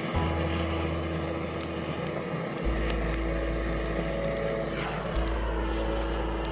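Background music: slow, held chords over a low bass note that changes about every two and a half seconds, with faint scattered clicks.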